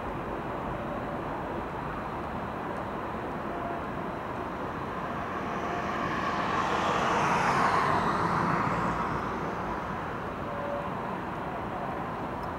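Steady urban traffic noise, with a vehicle passing by that swells to a peak about seven or eight seconds in and then fades.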